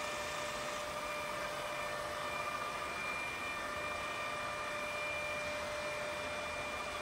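HMT RM63 radial arm drill's spindle and geared drill head running at top speed, 1800 rpm: a steady whir with a constant high tone and no major noise, a sign of a drive in good order.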